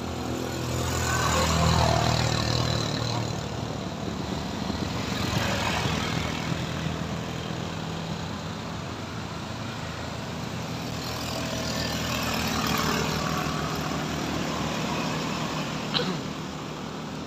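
Engines of cars and motor scooters passing one after another, swelling and fading in three waves, the loudest about two seconds in. A short sharp knock sounds near the end.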